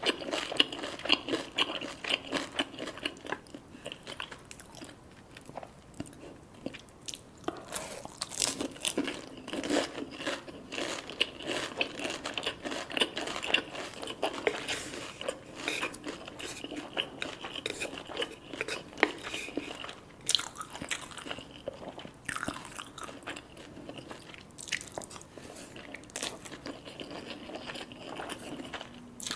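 Close-up mouth sounds of someone biting into and chewing crisp deep-fried food, with irregular crunches and crackles, softer for a few seconds near the start.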